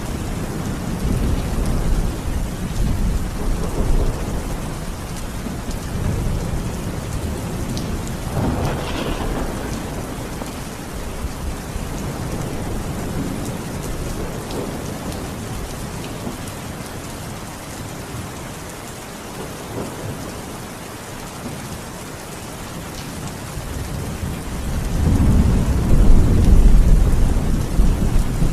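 Steady rain falling with rolling thunder: low rumbles come and go through the first half, and a louder, deep thunder rumble builds near the end.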